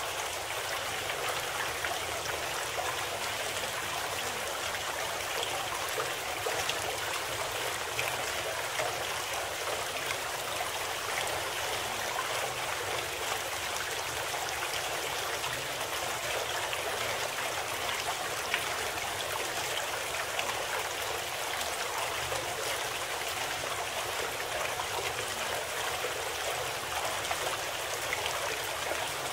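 Steady sound of running water, like a flowing stream, even and unchanging throughout.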